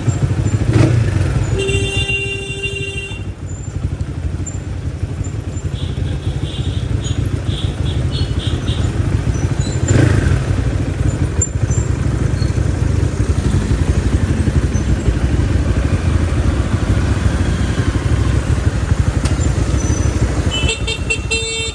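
Crossfire RM250 motorcycle running on the road with a steady low rumble of engine and wind. A vehicle horn sounds for about a second, around two seconds in, followed by a series of short high beeps a few seconds later and another horn near the end.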